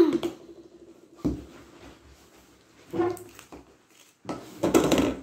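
Handling noise from a plastic slime container and its plastic wrapping: four separate bursts of knocking and crinkling against a wooden table, the longest near the end.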